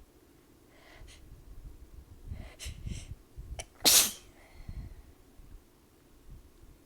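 A person sneezing: a few short catching breaths build up, then one loud sneeze about four seconds in, followed by a faint breath out. The uploader puts the sneezing down to her nose reacting to temperature changes after a shower, along with allergies.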